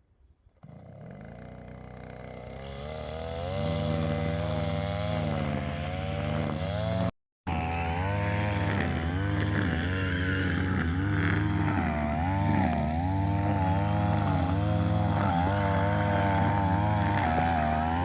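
Brush cutter engine coming in and building to speed, then running with its pitch wavering up and down as the throttle is worked. It cuts out for an instant about seven seconds in.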